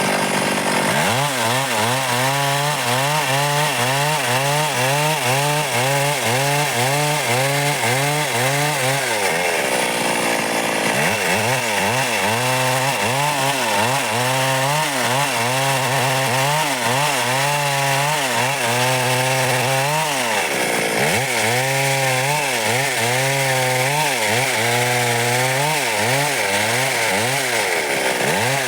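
Stihl MS 382 two-stroke chainsaw running hard as it cuts dry wood. The engine note wavers up and down rhythmically under the load, and dips briefly about ten seconds in and again about two-thirds of the way through.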